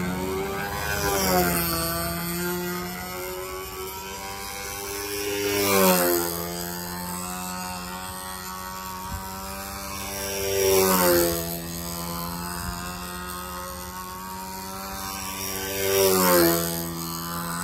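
Radio-controlled aerobatic model airplane's motor and propeller droning steadily. Four times it swells and drops in pitch as the plane passes close by: about a second in, about six seconds in, about eleven seconds in and near the end.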